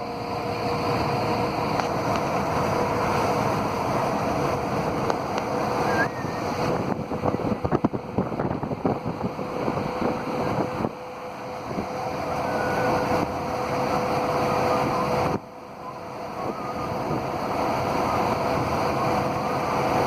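Heavy rain falling: a steady rushing hiss, with a dense spatter of drops around the middle and the level dropping suddenly twice.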